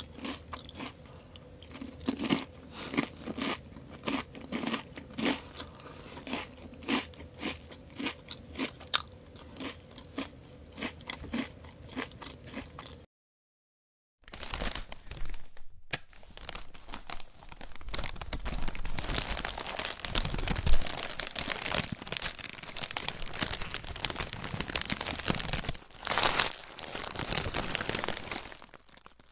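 Potato chips being bitten and chewed: a quick series of sharp, crisp crunches. After a brief silent gap, a denser, almost continuous crackling crunch.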